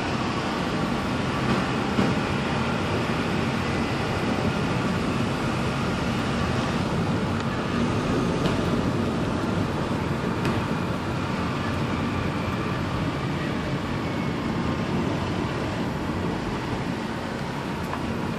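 Motor vehicle running steadily: an even engine and road noise with a low hum and a few faint clicks.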